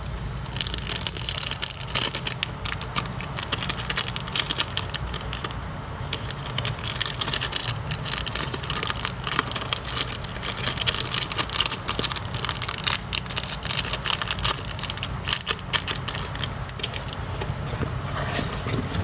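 Plastic packaging crinkling and crackling as it is handled, a dense irregular run of crackles over a low steady rumble.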